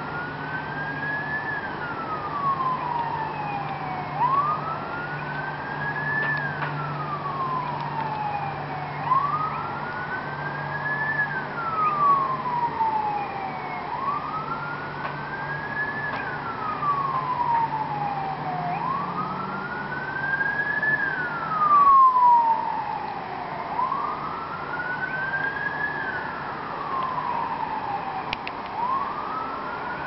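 Queensland Fire and Rescue Service fire truck siren in a steady wail, with no yelp or horn. Each cycle rises quickly, then falls slowly, repeating about every five seconds.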